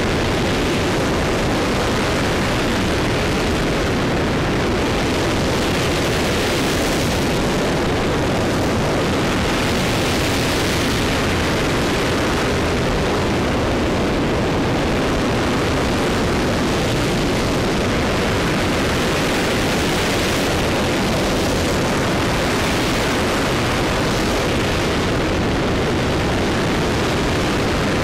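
RS-25 liquid-hydrogen/liquid-oxygen rocket engine (flight engine E2063) firing at full run in a static hot-fire test: a steady, loud rush of exhaust noise, with the hiss swelling and easing every few seconds.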